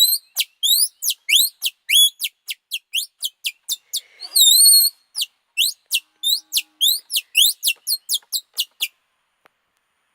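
A songbird singing a fast run of short, high, rising whistled notes, about three or four a second, with one longer wavering note about four seconds in; the song stops near the end.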